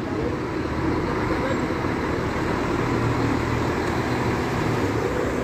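Diesel engine of a Marcopolo G8 double-decker coach on a Mercedes-Benz chassis, running steadily as the coach drives slowly past, with a low hum and tyre noise.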